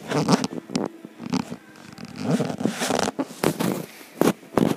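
Handling noise from a handheld camera being fumbled and turned around close to the microphone: irregular scrapes, rustles and knocks, the loudest a few near the end.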